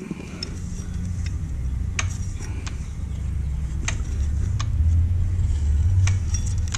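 Sharp metallic clicks, a few seconds apart, from a Yamaha Zuma 125 scooter engine and its parts being turned by hand to line up the timing marks at top dead centre. A low rumble under them grows louder.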